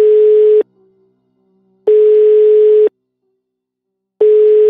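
Telephone line tone from a phone's earpiece: a single steady beep about a second long, repeating with a little over a second of pause between beeps, three times. The call is not being answered.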